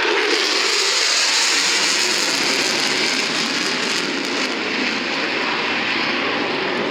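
F-16 fighter jet passing low, its jet engine noise loud and steady, coming in sharply just at the start and easing slightly toward the end.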